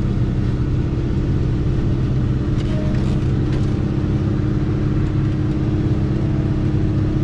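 Farm tractor engine running steadily, heard from inside the cab as it loads round hay bales, with a few faint clicks around three seconds in.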